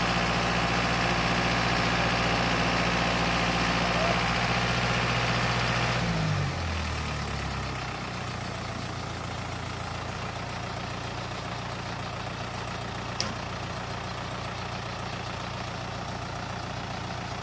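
Boom truck's engine running steadily at raised revs. About six seconds in the revs fall away and it settles to a lower, quieter idle. A single click is heard near the end.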